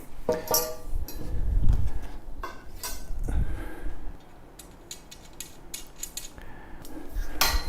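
Metal parts of a compost tumbler's frame clinking and clanking as they are handled and fitted together: irregular knocks, some ringing briefly, the loudest one near the end.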